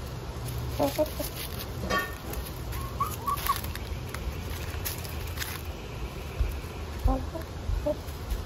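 Hens clucking softly in a few short calls while they feed, with scattered taps and rustles of pecking and scratching in dry leaf litter.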